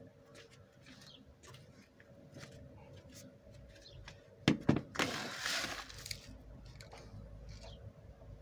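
Granular bonsai soil poured from a plastic scoop into a cut-down plastic bottle: two sharp knocks about halfway through, then about a second of rattling hiss as the grains pour in.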